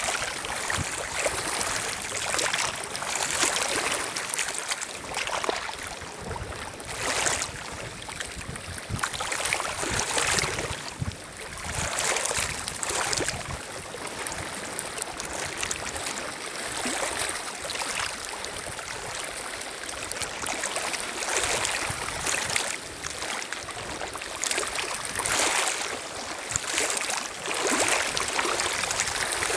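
Small lake waves lapping and splashing on a pebble shore around half-sunk cardboard boxes, coming in irregular surges every second or two.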